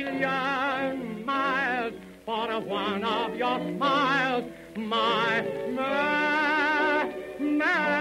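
A voice singing in an operatic style with a wide vibrato, in short phrases and then one long held note about six seconds in, over a steady musical accompaniment.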